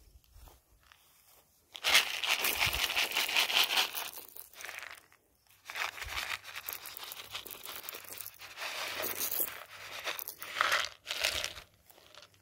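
Shelled corn being poured out and scattered onto dry grass, a dry rustling and crinkling that comes in two long stretches, starting about two seconds in and again about six seconds in.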